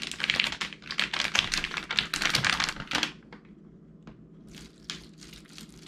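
Plastic MRE flameless ration heater bag crinkling and crackling as it is handled and held open, a dense run of crackles for about three seconds, then only a few scattered ones while water is poured into it.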